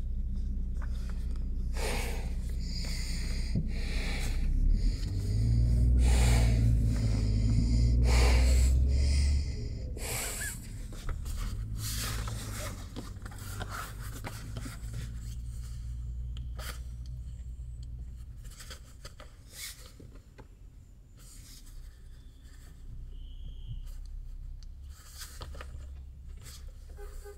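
Nylon sleeping bag and inflatable pillow rustling and crinkling in short scrapes as they are handled and spread out, over a steady low rumble. About five seconds in, the rumble grows louder for about four seconds, then eases off.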